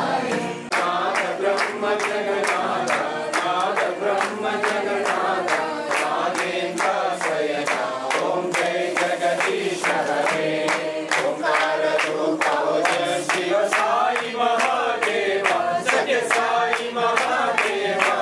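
A group of devotees singing a devotional chant together in unison, with sharp strikes keeping a steady beat under the voices.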